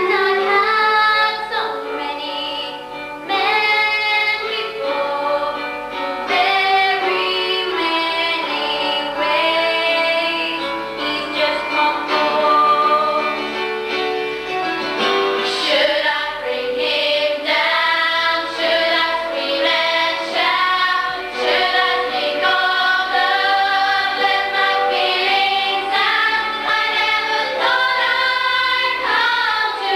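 Young female voices singing a stage-musical song: a girl's solo voice, with a group of young singers singing together near the end.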